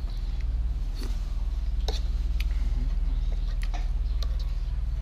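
A metal spoon scraping and tapping in a non-stick frying pan of hot oil while fried bits are scooped out, giving a few sharp scattered clicks. Under it runs a steady low hum.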